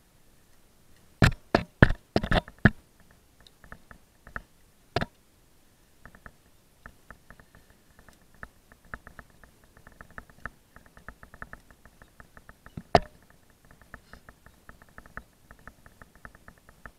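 Metal climbing hardware (carabiners and a rappel device on a harness) clinking and knocking while the rope and gear are handled. A burst of sharp knocks comes about a second in, single knocks follow near five seconds and again near thirteen, and between them runs a long series of quick, faint ticks.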